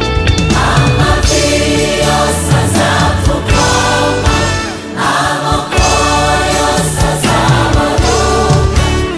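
Large mixed gospel choir singing in Kinyarwanda, backed by a live band with keyboard, bass and drums.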